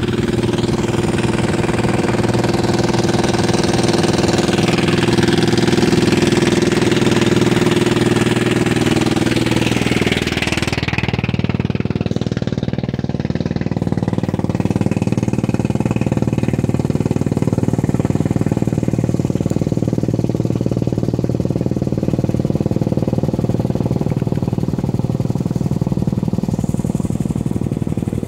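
Motorcycle engine running while riding on a gravel road, with wind rushing over the microphone. About ten seconds in, the engine note drops and the wind fades as the bike slows. It then runs steadily at low revs.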